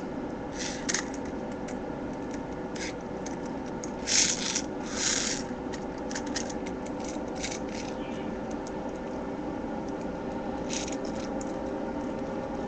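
Plastic parts of a small solar walker toy scraping and clicking as it is pried at by hand, in a few short scrapes, the loudest two about four and five seconds in, over a steady low hum.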